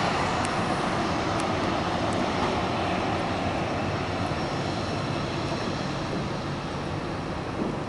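Jet engines of a twin-engine airliner running at low power as it slows and turns on the runway after landing: a steady roar that slowly fades.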